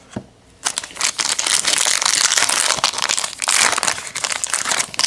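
A trading card pack's wrapper being torn open and crinkled by hand, a dense crackling rustle that starts about half a second in and goes on steadily.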